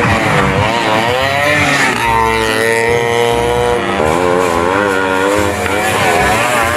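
Toy bajaj (auto rickshaw) playing its electronic motorcycle-engine sound effect, a pitched motor tone that wavers up and down.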